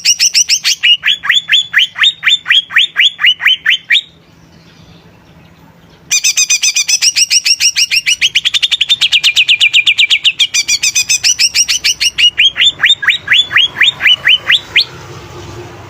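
Cucak ijo (green leafbird) singing in rapid trills of sharp, repeated notes, about ten a second. The trills shift from high chattering notes to notes that sweep downward. Two bouts are heard: the first breaks off about four seconds in, and after a short pause the second runs until near the end.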